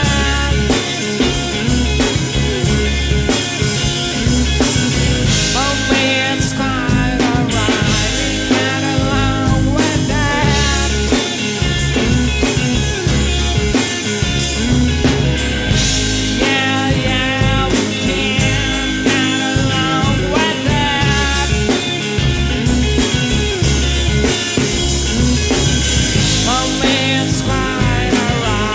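Folk rock band playing a song: a male voice singing in English over acoustic guitar, electric guitar, bass and a drum kit keeping a steady beat.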